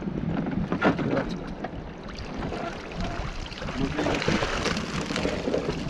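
Water splashing and dripping as a wire-mesh fish pot is hauled up out of the sea over the side of a small boat, with a few knocks of its frame against the boat and wind on the microphone.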